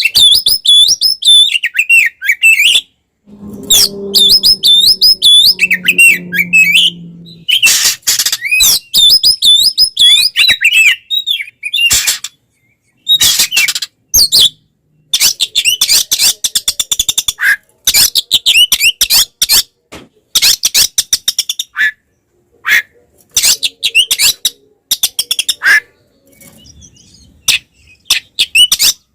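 Oriental magpie-robin (kacer) singing its aggressive 'fighting' song: fast bursts of loud, repeated whistles and chattering phrases with short breaks between them, the kind of song used to provoke other males. A low steady tone sounds underneath for a few seconds near the start.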